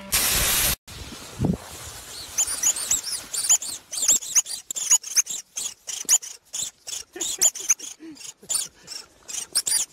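A loud burst of hiss for under a second, then a small furry animal in snow squeaking over and over in short, high-pitched chirps, several a second.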